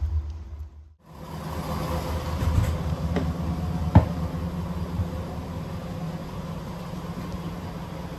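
Diesel engine of a Class 810 railbus idling, heard from inside the railcar as a steady hum, with a single sharp knock about four seconds in.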